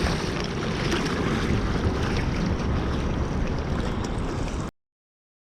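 Wind buffeting the camera microphone, with a few faint clicks. It cuts off suddenly near the end.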